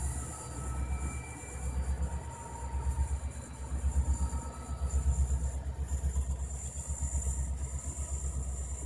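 Union Pacific diesel-electric freight locomotives rolling slowly past close by, their engines giving a steady low rumble with a fast pulsing beat.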